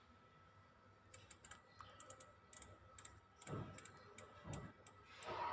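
Faint, irregular clicking of an LG microwave's control-panel keys being pressed to select the diet fry program, with a couple of soft low bumps in the second half.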